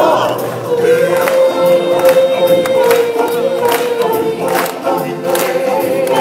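Choir and solo singers holding one long note over drum hits in a live stage musical performance.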